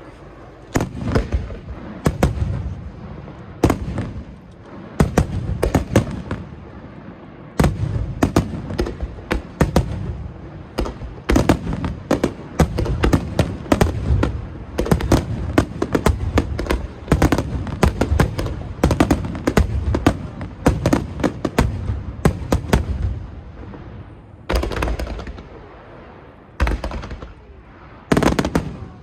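A starmine of aerial fireworks: rapid volleys of shell bursts, many sharp reports a second, thudding and crackling almost without pause. About three-quarters of the way through the firing thins out, with three short clusters of bursts near the end.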